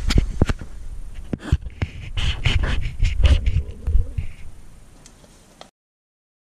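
Close handling noise: a run of sharp clicks and knocks with low thuds and rustling as a person moves and crouches at a car's front wheel well. The sound fades and cuts to dead silence near the end.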